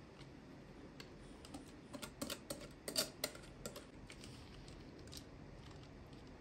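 Light clicks and knocks of kitchen utensils handled over a metal baking tray, a glass bowl with a wire whisk in it and a silicone spatula. The clicks come in a quick cluster about two to three and a half seconds in, the loudest near three seconds, over faint room tone.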